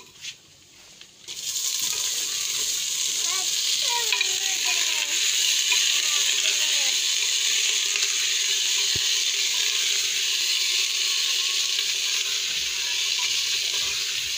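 Raw chicken frying in hot ghee and onions in a clay pot over a wood fire: a loud, steady sizzle that starts abruptly about a second in as the meat goes into the fat, and keeps on while it is stirred.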